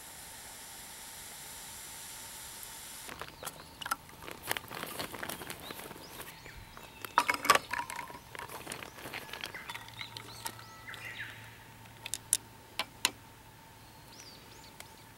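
Sparkling water pouring from a plastic bottle into a tall glass, a steady hiss that stops about three seconds in. Irregular clicks and sharp knocks follow as the bottle is capped and set down and the glass is handled, with birds chirping faintly.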